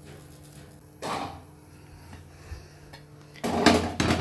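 Iron tawa and tongs clattering against a gas stove. There is a short scrape about a second in, then a louder run of metal knocks near the end, over a steady low hum.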